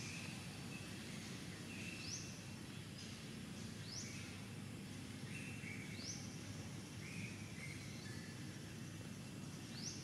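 A high-pitched animal call repeated about every two seconds: each a quick upward sweep followed by a lower, briefly held note. Under it runs a steady low outdoor background hum.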